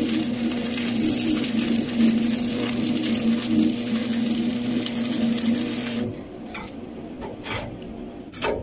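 Stick (arc) welding on a steel pipe elbow: the electrode's arc buzzes and crackles steadily, then stops about six seconds in, leaving only a few faint clicks.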